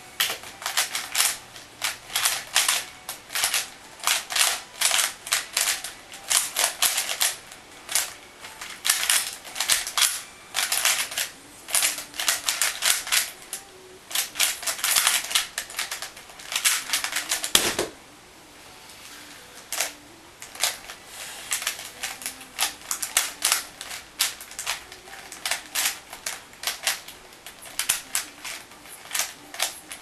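A 3x3 speedcube being turned at speed: rapid plastic clacking of the layers in quick runs with brief pauses, through a timed solve that ends with a single thump about 18 seconds in. After a short lull the clacking starts again, sparser.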